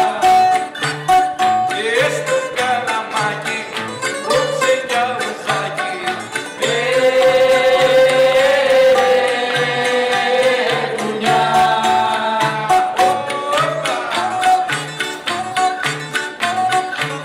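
Rebetiko band playing live: baglamas, bouzouki and guitar strumming and picking a steady, even rhythm, with Greek singing over it.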